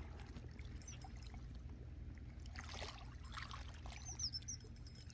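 Faint small waves lapping and trickling on a rocky lakeshore over a low, steady wind rumble, with a few faint high squeaks about four seconds in.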